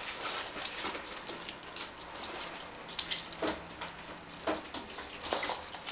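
Prairie dogs scuffling on a hardwood floor: scattered light taps and scrapes, with a few brief sharp ticks in the second half.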